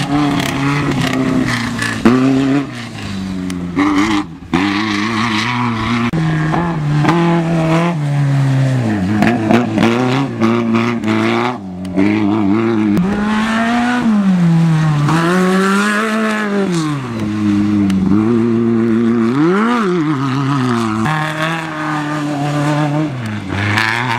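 Off-road race buggy engines revving hard, the note rising and falling again and again as the cars power through dirt corners. The sound changes abruptly twice as one car gives way to another.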